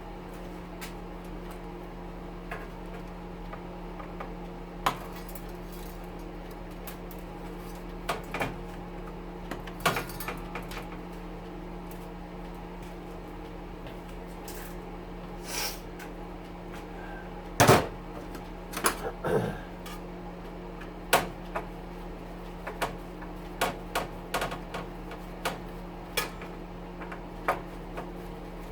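Scattered metal clanks and clicks from an oven's sheet-metal panels and screws being worked apart by hand, the loudest clank about 18 seconds in and a quick string of clicks near the end. Under it runs the steady hum of a stove fan.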